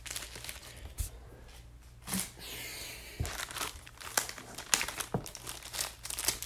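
Plastic packaging crinkling and tearing as it is handled, with scattered sharp crackles and a longer rustling tear about two seconds in.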